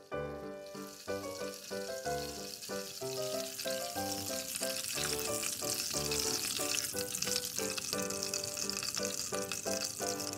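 Butter sizzling and foaming in a stainless steel saucepan as it is cooked down toward brown butter, the sizzle starting about a second in and growing louder, with a spatula stirring through it. Background music plays throughout.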